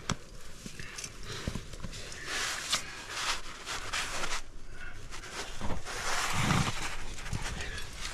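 A rock climber breathing hard, with irregular scuffs, clicks and knocks of climbing shoes and gear against granite.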